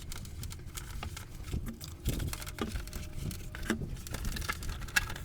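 Handling noise of computer equipment being set up: scattered clicks, taps and light knocks, busier in the second half, as a monitor cable is connected.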